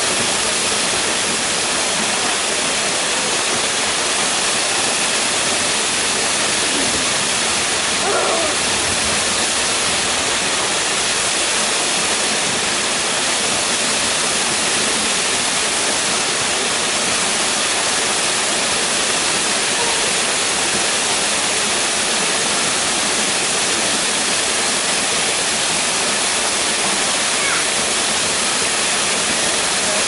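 Small waterfall spilling down a rock face, an even, unbroken rush of splashing water.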